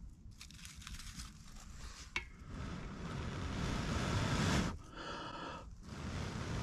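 A person blowing hard on the embers of a dying campfire: a long rushing blow that swells and stops abruptly, a short pitched sound, then another blow, after a few light clicks of handling.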